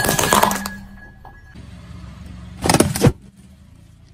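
Car tyre crushing brittle plastic stemmed cups: a dense crackle of snapping, shattering pieces that dies away after about a second, leaving the car's low running rumble. About three seconds in, a second short, loud burst of cracking as the tyre crushes the next object.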